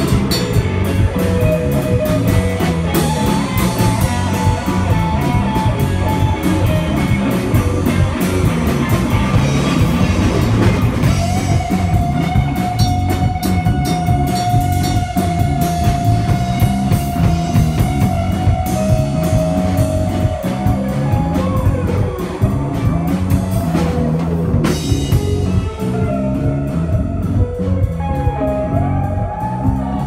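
Instrumental rock trio playing live: electric guitar lead lines, including a long held note, over electric bass and a full drum kit. The cymbals thin out over the last few seconds.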